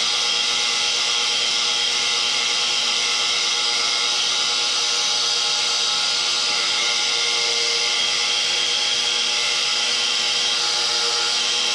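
Lagun knee mill cutting a metal block with an end mill held in a Cat 40 tool holder: a steady machining noise with constant tones, unbroken throughout. It is a test cut to prove that Cat 40 tooling works in the mill.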